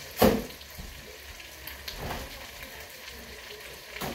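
Steady low sizzling from the pot of hamburger and beans on the stove, with one loud clunk about a quarter second in and fainter knocks near two seconds and near the end.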